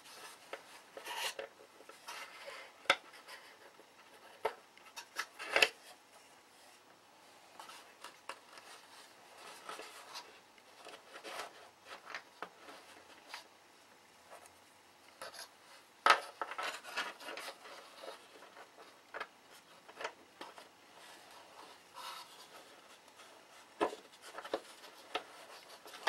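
Scattered clicks, taps and rubbing from hands and small hand tools working in a balsa model airplane wing frame, with the sharpest click about 16 seconds in.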